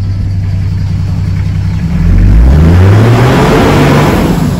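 Turbocharged Toyota 1HZ 4.2-litre straight-six diesel idling, then revved once about two seconds in. The pitch climbs, holds briefly with a rising hiss, and drops back toward idle near the end.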